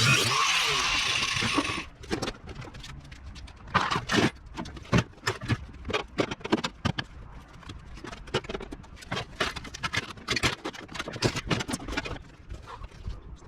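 A power tool runs briefly and stops suddenly about two seconds in, then irregular metal clanks, knocks and rattles follow as parts of an old washing machine are worked loose to free the drum.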